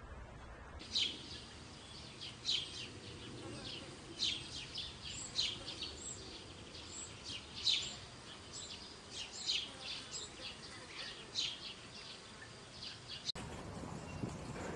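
Outdoor ambience of short, high chirps repeating irregularly, over a faint steady high buzz. Near the end it cuts abruptly to a duller, lower background noise.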